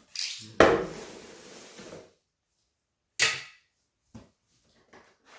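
Cardboard box of a robot vacuum being opened and its packaging handled: a sharp knock about half a second in followed by rustling, then after a pause another sharp knock and a few faint clicks.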